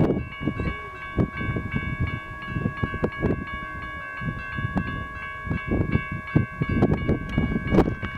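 Railroad grade-crossing bell ringing steadily in rapid repeated strikes, the warning that a train is approaching the crossing. Underneath is an irregular low gusty rumble.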